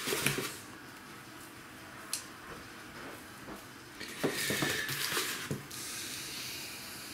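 Salt taken by hand from a plastic bucket and sprinkled over layers of pork fat in a metal pot: a grainy hiss of falling and rubbed salt, loudest for a second or so about four seconds in, with one small click about two seconds in.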